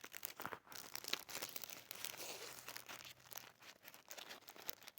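Workbench handling noise: irregular light clicks and rustling as parts and tools are handled, with a faint low hum for a moment in the middle.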